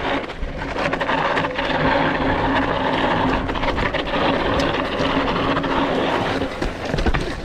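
Specialized Pitch hardtail mountain bike running down a steep, loose dirt slope: tyres crunching and sliding over dust and gravel, with a steady run of rattles and knocks from the bike.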